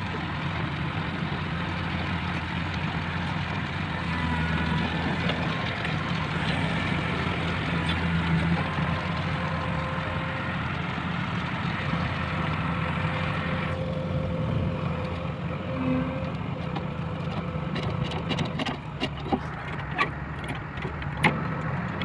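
Heavy diesel engine of construction machinery running steadily. A series of sharp metallic knocks and clicks comes in the last several seconds.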